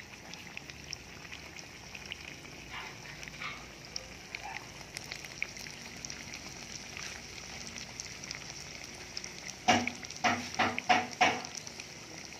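Battered banana fritters deep-frying in hot oil in a ceramic bowl, a steady sizzle with fine crackling. Near the end, five loud, short, pitched sounds come in quick succession.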